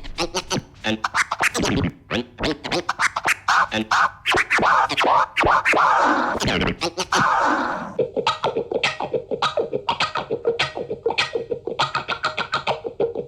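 Electronic music with a dense run of cut-up, scratch-like hits; a steady held tone comes in about eight seconds in.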